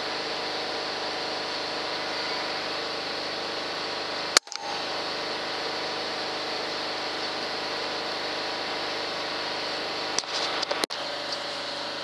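Farm generator running with a steady, multi-toned hum. About four seconds in comes a single sharp crack: a shot from a Daystate Wolverine R .22 air rifle. A short run of knocks follows a little before the end.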